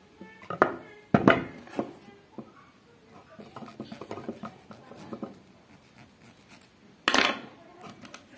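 Hands working with small tools and wire parts on a bench: a few sharp knocks and clatters about a second in and a louder one near the end, with light scraping and rustling between.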